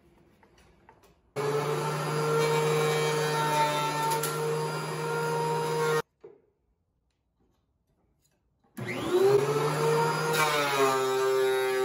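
DeWalt benchtop thickness planer's motor and cutterhead running with a steady whine, cutting off suddenly. It starts again near the end with a rising spin-up, and its pitch drops a little, sounding heavier, as a board feeds in and the planer takes a cut.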